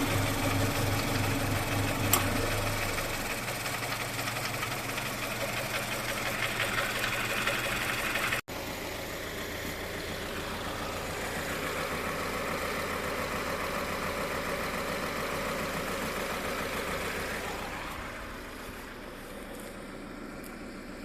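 The 2.0-litre flat-four boxer engine of a 2012 Toyota GT86 / Subaru BRZ / Scion FR-S idling with the noise of a failing brake vacuum pump. The sound breaks off for an instant about eight seconds in, and it is quieter over the last few seconds.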